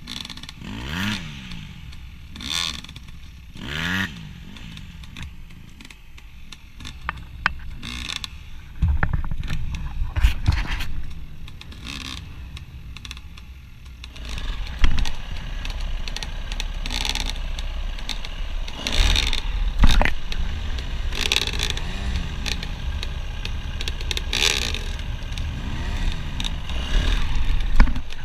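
Dirt bike engines revving. There are a few separate rises and falls in pitch over the first several seconds. From about halfway the engine runs louder and more continuously, with repeated revs as the bike rides off.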